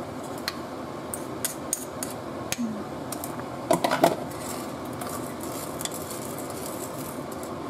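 A ladle clinking and scraping against a metal pot while coconut milk is stirred, in scattered light knocks with a quick cluster a little before halfway.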